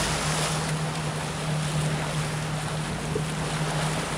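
A moving motorboat at sea: a steady engine drone under water rushing past the hull, with wind buffeting the microphone. The drone drops out about four seconds in.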